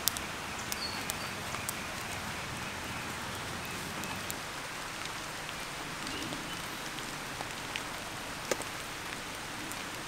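Open wood fire crackling: a steady hiss with scattered sharp pops, the loudest about eight and a half seconds in.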